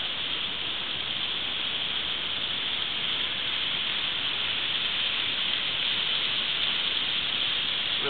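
Waterfall pouring down a rock bluff and splashing onto rocks: a steady, even hiss of falling water.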